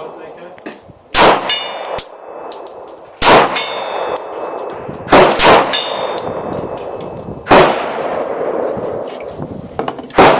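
Six 9mm shots from a Glock 19 pistol, unevenly spaced, two of them in quick succession near the middle. Several are followed by the high, ringing ting of a steel plate target being hit.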